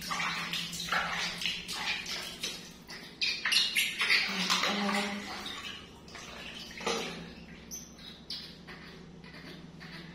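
Water splashing and dripping in a plastic basin as a wet baby monkey is dipped and lifted out, in irregular splashes that thin out after about seven seconds. A short vocal sound comes about halfway through.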